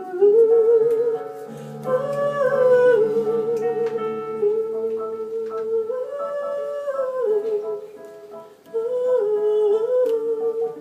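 A woman's voice sings a wordless melody in a hum-like vocalise, with long held notes, a wide vibrato and smooth glides between pitches. Low sustained accompaniment chords sit under it and drop out about halfway through.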